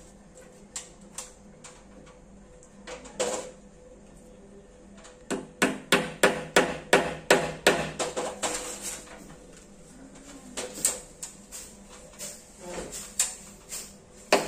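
Hammer driving nails into wood. A few scattered knocks come first, then from about five seconds in a run of quick, even blows at about three a second, followed by more blows later on.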